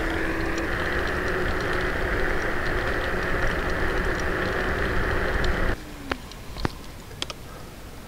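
Kugoo Kirin G3 electric scooter being ridden: a steady rush of wind and tyre noise with a faint steady hum. It cuts off abruptly about six seconds in, leaving a few faint clicks.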